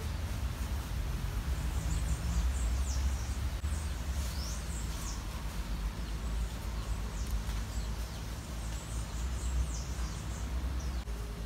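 Small birds chirping: a run of short, high, sweeping chirps, a few each second, over a steady low rumble.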